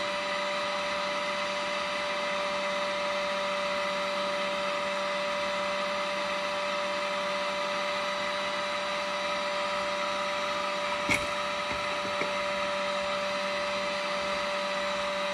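Small electric motor running with a steady hum and whine, from the shop's heating and powder-coating gear. A single sharp click comes about eleven seconds in.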